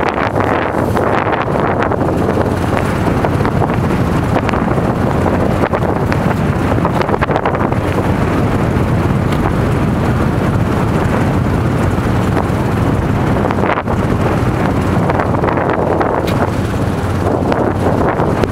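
Strong wind buffeting the microphone steadily, with a few scattered knocks from an ice chisel striking the ice at the edge of a fishing hole.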